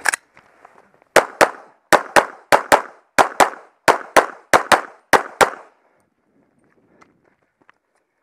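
Glock 17 9 mm pistol firing in quick pairs: a single shot at the start, then seven double taps about a quarter second apart, roughly fifteen shots in five and a half seconds. The shooting then stops, leaving only faint small clicks.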